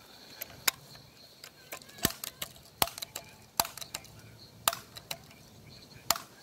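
A pump BB gun being handled, making a string of sharp, irregular clicks and knocks, about fifteen over six seconds.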